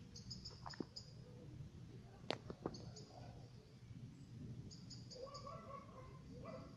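Faint high-pitched outdoor chirping in three short runs of quick notes, over a low steady rumble. A few sharp clicks come in between, the loudest a little past two seconds in.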